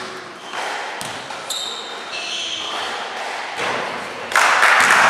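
Basketball free throw in a gym: the ball knocks on the court once or twice and sneakers squeak on the floor. A loud, noisy burst of sound comes in about four seconds in, as the shot reaches the rim.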